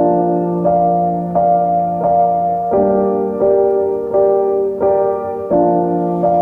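Slow, gentle piano music: a new note or chord struck about every 0.7 seconds over sustained lower notes.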